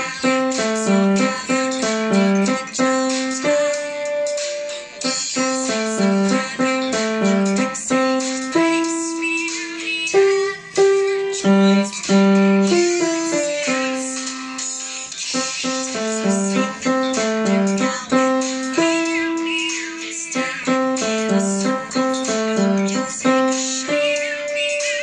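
Piano played by a beginner: a simple melody of single notes, one at a time, in a steady beat with some longer held notes. The notes pass between the two hands in a five-finger position around middle C.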